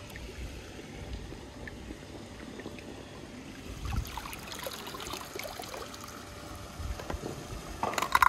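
Pool water sloshing and trickling as a plastic scoop is drawn through it and lifted out, water running off it. A few sharp clicks near the end.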